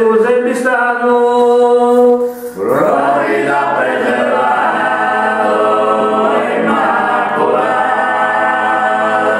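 Unaccompanied Sardinian men's choir singing canto a traggiu, the polyphonic singing of Bosa, several voices holding long chords in close harmony. One phrase ends about two and a half seconds in, and the voices enter again at once on a new chord that they hold.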